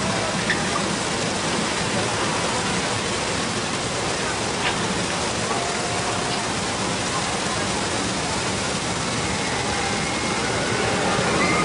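Steady rushing of a theme-park waterfall in the coaster's artificial rockwork. Near the end, faint voices and cries come in as the coaster train full of riders passes.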